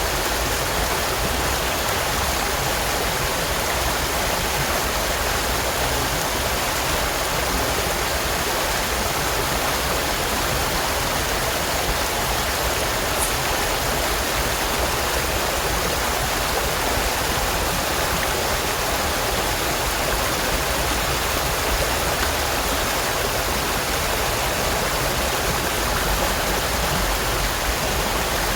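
Stream water flowing steadily, a continuous rushing and babbling.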